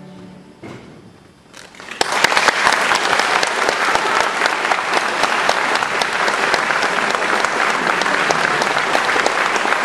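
The last held violin note dies away at the start, then after a moment of quiet a concert audience breaks into steady applause about two seconds in.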